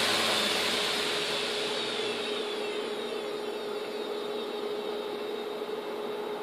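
Hard drive spindle motor with four platters spinning down from about 15,000 RPM after being stopped: its high whir slides down in pitch and fades over the first few seconds, then goes on more quietly. A steady hum stays underneath throughout.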